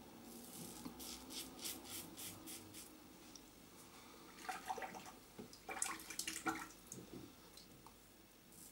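A Gillette Tech safety razor with a sharp Gillette 7 O'Clock blade scraping through lathered stubble in short strokes, about three a second, gliding without tugging. Around the middle, a few seconds of louder water splashing and knocking.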